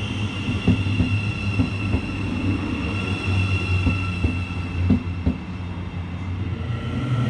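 Thameslink electric multiple-unit train moving past along the platform close by: a steady low rumble and a steady high whine, with the wheels clicking sharply a few times a second at uneven spacing.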